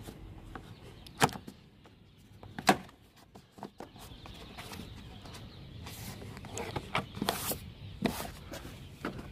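Plastic trim piece under a BMW F32 tail light being handled and pressed into place, giving scattered sharp plastic clicks and knocks. The loudest comes near three seconds in, and a cluster follows in the second half.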